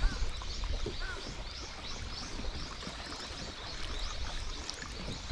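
Small waves lapping against a boat hull on open water, with a quick, high chirping that repeats a few times a second and a short thump right at the start.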